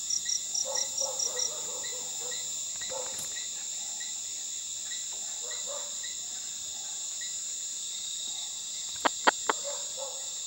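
Night chorus of crickets and other insects, a steady high-pitched trill, with one nearby caller chirping rapidly, about four to five chirps a second, for the first second and a half. Near the end three sharp clicks stand out as the loudest sounds.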